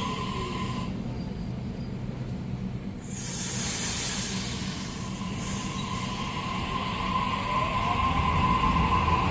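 Electric suburban train at a platform: a steady motor whine cuts off about a second in, a burst of air hiss comes about three seconds in, then the whine returns, rising in pitch and growing louder near the end.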